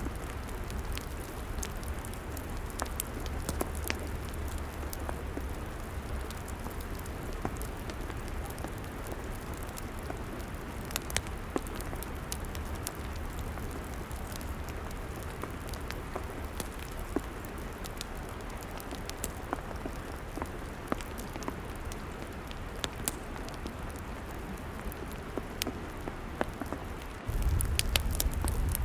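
Crackling log fire: a steady hiss with frequent sharp pops and crackles over a low rumble, which gets suddenly louder about a second before the end.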